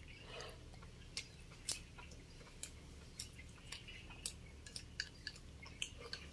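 A person chewing a mouthful of chicken and porridge, quietly, with sharp wet mouth clicks and smacks about every half second at an uneven pace.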